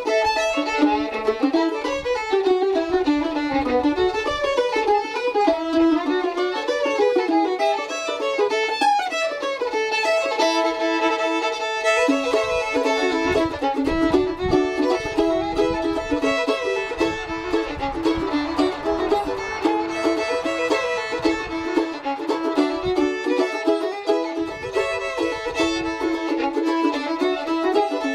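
Fiddle playing a melody, accompanied by a strummed mandolin.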